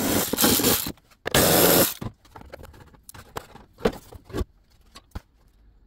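Plastic air box being worked loose and lifted out of a car's engine bay: two stretches of loud scraping and rattling in the first two seconds, then a few light knocks.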